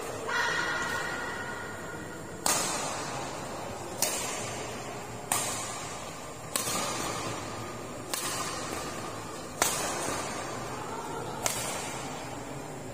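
Badminton rackets striking a shuttlecock back and forth in a doubles rally, about seven sharp hits roughly a second and a half apart, each ringing out in the hall's echo.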